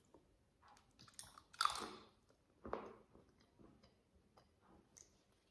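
A piece of chocolate bitten off and chewed: a few short sounds in the first three seconds, then faint chewing.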